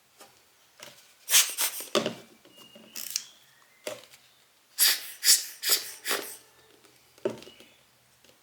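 Small metal lens parts and tools handled on a work surface: a string of sharp clicks and knocks, in two quick clusters about a second long with single knocks between them.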